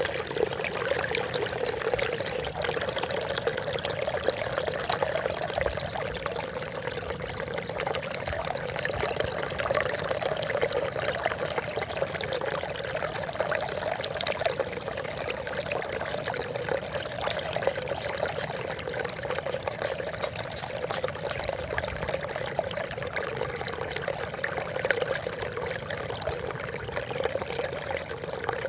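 Water trickling and splashing steadily, without a break.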